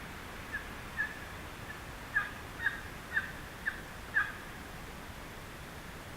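Turkey calling: a series of about eight short, evenly spaced notes, growing louder toward the end.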